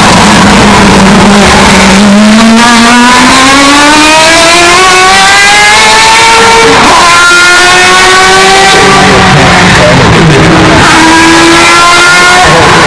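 Historic Formula 1 race car engine accelerating hard, its pitch climbing through each gear with sudden drops at about two upshifts. The audio is boosted to constant full-scale distortion.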